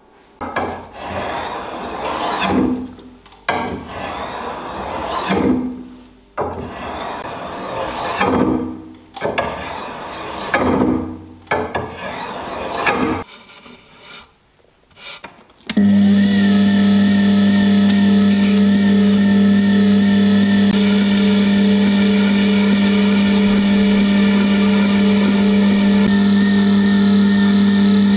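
A series of long rubbing strokes of hand work on the steel sword blade. Then, a little over halfway, a JET wet-stone sharpening machine's motor starts and runs with a loud, steady hum.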